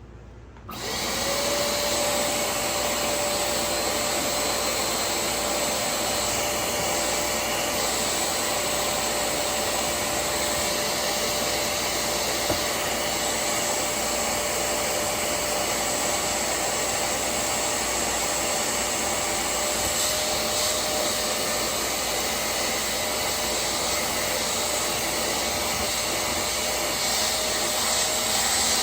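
Hoover CleanSlate portable spot cleaner switched on about a second in, its suction motor then running steadily with a rush of air and a constant whine.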